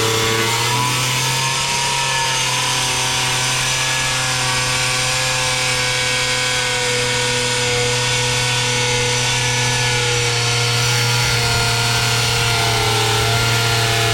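Angle grinder running at a steady pitch as it wet-cuts lengthways through a 1200x600 mm tile.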